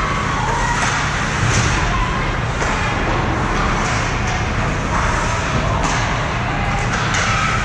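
Ice hockey rink ambience during play: steady low rumble and scraping, with sharp stick and puck knocks several times and faint distant shouting voices.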